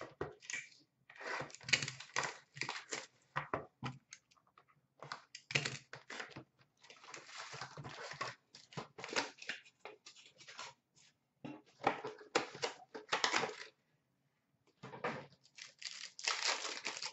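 Upper Deck Ice hockey card packs being torn open by hand: irregular bursts of ripping and crinkling, stopping briefly a few times.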